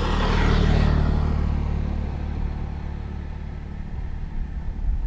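A low engine rumble passing by, loudest about a second in and then fading away.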